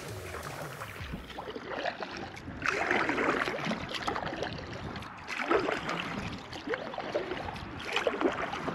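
Paddle strokes from an inflatable kayak on choppy water: the paddle blades splash in, three strokes a couple of seconds apart, over steady lapping water.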